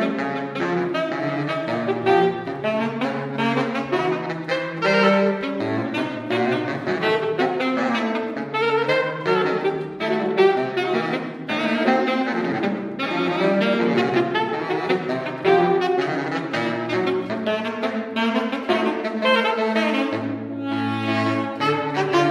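A saxophone duo playing a tango-style canon: quick, clearly tongued notes in a higher line over a lower line. Near the end the lower saxophone holds a long low note.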